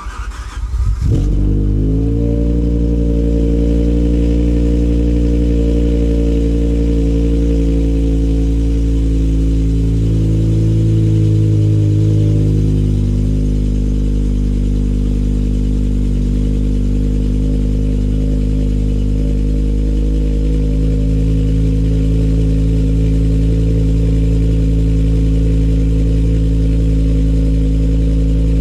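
BMW E60 M5's 5.0-litre V10 with a custom exhaust cold-starting: a short crank, the engine catching within about a second, then a steady, loud fast idle. The idle steps down a little about 13 seconds in as the cold-start idle settles.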